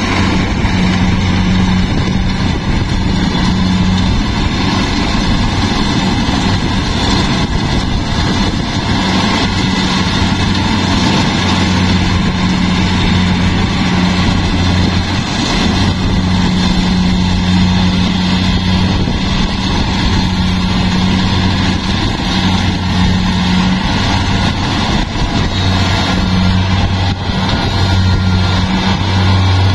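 Combine harvester's diesel engine running steadily, a loud, even low drone with a mechanical rush over it.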